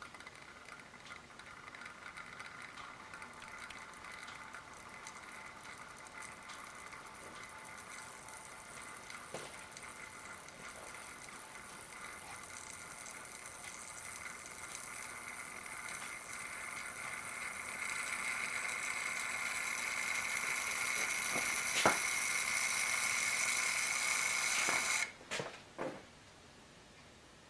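Electrical buzz from the variac-powered, water-filled CRT electron-gun setup: a steady hum of several tones that grows steadily louder. A sharp click comes a few seconds before the buzz cuts off suddenly, and two brief bursts of buzz follow.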